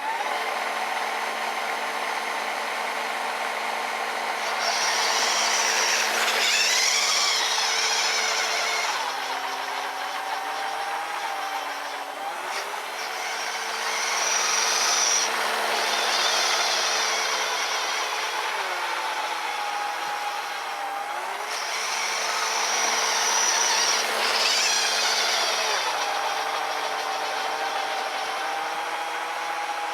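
RC snowblower's small brushed 550 electric motor and drivetrain whining steadily, the pitch shifting and gliding every few seconds as speed changes. Three times, for about four seconds each, a louder rushing hiss rises over the whine as the auger throws snow.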